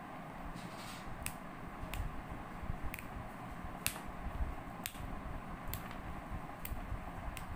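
Short sharp clicks or taps, about one a second, over a steady background noise.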